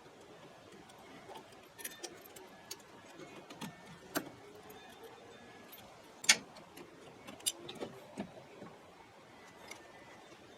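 Faint, scattered metallic clicks and clinks of tools and parts being handled during car assembly, with one sharper knock about six seconds in.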